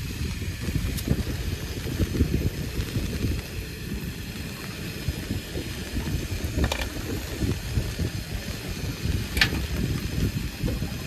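Wind buffeting the microphone as a low, uneven rumble, with two sharp clicks, one about two-thirds of the way through and one near the end.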